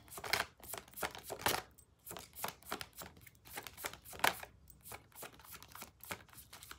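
A deck of tarot cards being shuffled overhand: a run of short, soft card flicks and slaps, about two a second.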